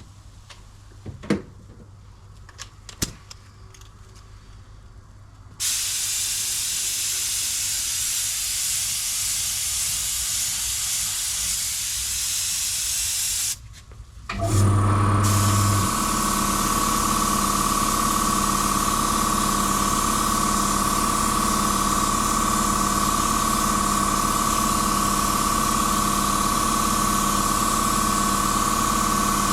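Paint spray gun hissing steadily as it sprays, starting about five seconds in after a few light clicks. After a short break about halfway through, a motor starts and runs on with a steady whine beneath the continuing hiss.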